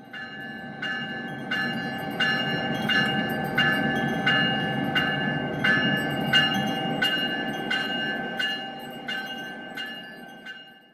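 Locomotive bell ringing steadily, about three strikes every two seconds, over the low rumble of a train. It fades in at the start and fades out near the end.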